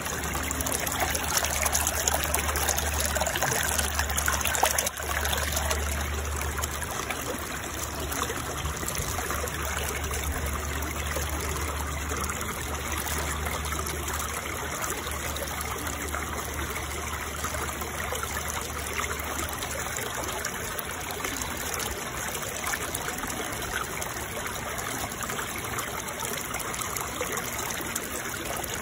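Steady running-water noise, like a trickling stream, with a low hum underneath that stops about two-thirds of the way through.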